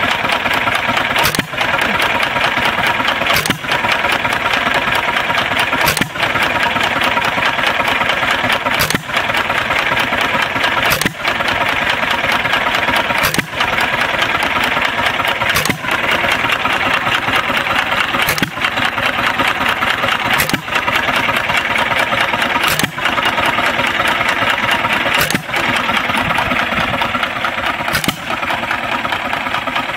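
John Deere 1 1/2 hp Model E single-cylinder hit-and-miss engine running under its governor. It fires a sharp stroke about every two to two and a half seconds and coasts on its flywheels between fires, with steady mechanical noise throughout.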